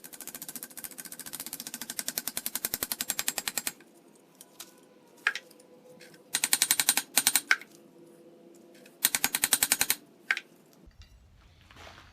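Hammer striking hot rebar on an anvil in fast, even runs of blows, about ten a second: a long run at the start, two shorter runs later, and a few single strikes in between.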